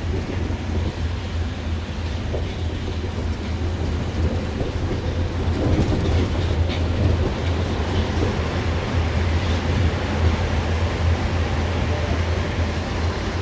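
Cabin sound inside a Paris Métro MP 73 rubber-tyred train on the move: a steady low rumble, with a few faint clicks and rattles about halfway through.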